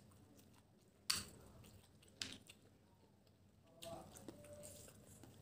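Faint, close-up sounds of a person eating snails by hand: two sharp mouth sounds about one and two seconds in, then a stretch of chewing.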